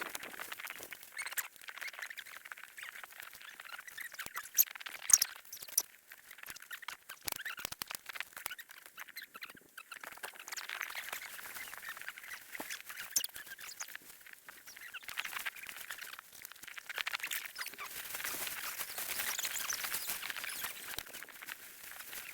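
Snow being shovelled: irregular scraping and crunching of a shovel in snow, with a couple of sharp clicks about five seconds in.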